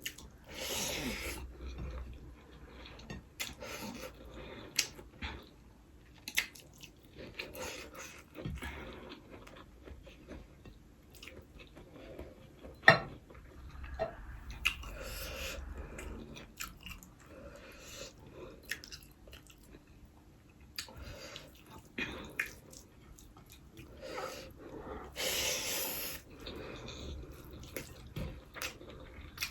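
Close-up chewing of a mouthful of fried rice, with scattered short mouth clicks, one sharper click about 13 seconds in.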